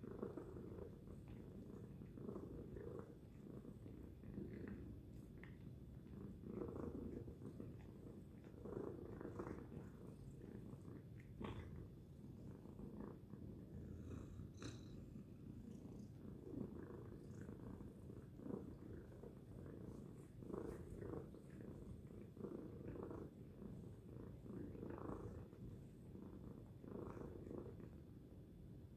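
Tabby cat purring steadily, the purr swelling and easing with each breath about every two seconds.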